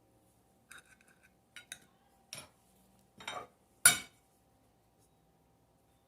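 A knife and serving utensil clinking and scraping against dishware as a slice of freshly baked cake is cut and lifted out: a handful of short knocks and scrapes, the loudest about four seconds in.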